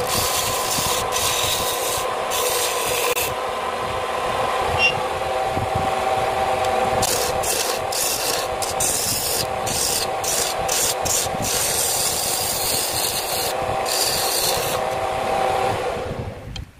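A wood lathe runs with a steady motor whine while a new, not-yet-sharpened turning chisel, made from a Mitsubishi L300 shock-absorber coil spring, scrapes and rasps a spinning wooden spindle. The scraping comes and goes as the tool is pressed in and eased off. Near the end all the sound falls away sharply.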